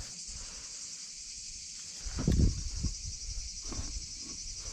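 Low knocks and rustles from handling the lamp fixture, loudest about two seconds in, as the old lamp is taken out. A steady high hiss runs under them.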